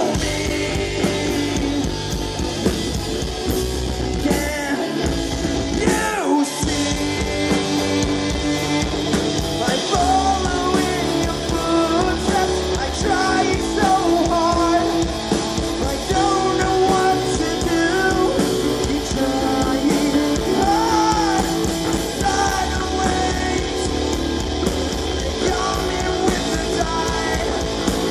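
Live rock band playing: distorted electric guitar, electric bass and a drum kit, with a male voice singing over them.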